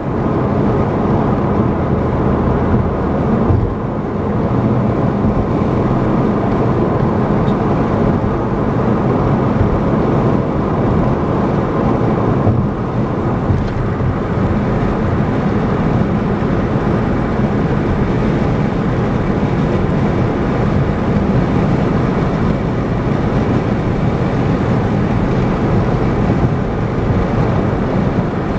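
Steady road and tyre noise with a low engine hum from a car cruising at highway speed.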